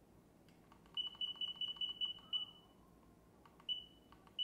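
NOSFET AERO electric unicycle's menu beeper giving short high beeps as its display buttons are pressed, each beep with a faint button click. About a second in comes a quick run of about seven beeps, roughly five a second, the last one held a little longer; two single beeps follow near the end.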